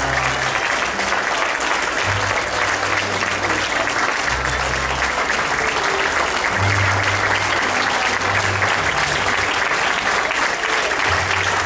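Audience applauding steadily, a dense crackle of many hands clapping, with low bass notes of music underneath.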